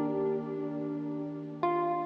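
Soft instrumental background music: held notes ringing on, with a new chord struck about one and a half seconds in.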